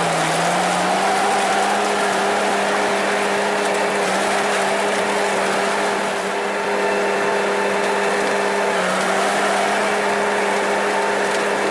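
A machine's engine or motor running steadily at high speed, its pitch dipping briefly at the start and again about nine seconds in.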